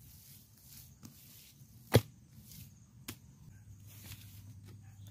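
Wooden logs knocking together as they are stacked: one sharp loud knock about two seconds in, and a lighter one about a second later.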